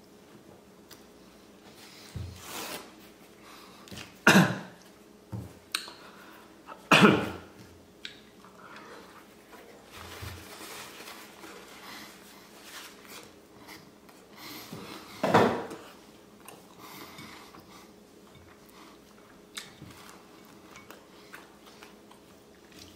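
A man coughing three times, short and loud, a few seconds apart, with light clinks of plates and cutlery in between.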